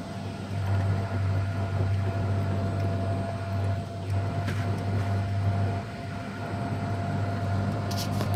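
A slow-moving vehicle's motor running steadily as it drives, with road noise: a low, even hum and a faint steady whine above it. The hum dips briefly about six seconds in.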